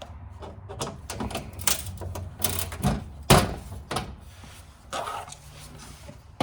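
Irregular clicks and knocks of hand tools working the plastic clips and screws of a car's under-engine splash shield, with one sharper knock about three seconds in.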